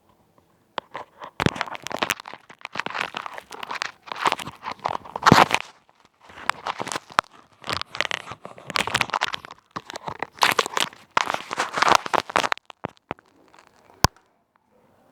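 Close crinkling and crunching rubbed right against a headset microphone, in dense bursts with a short pause near the middle, then one sharp click near the end.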